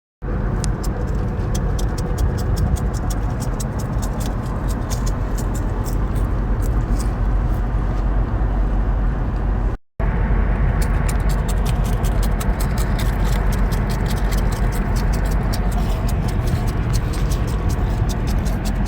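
Crispy seaweed snack crunching close to the microphone: many sharp crackles over a steady low rumble, broken by a brief cut to silence about halfway through.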